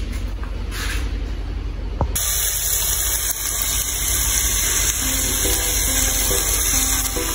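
Chopped collard greens sizzling in hot olive oil in a stainless steel pan, a steady hiss that sets in suddenly with a click about two seconds in. Soft background music with a simple melody comes in over it about halfway through.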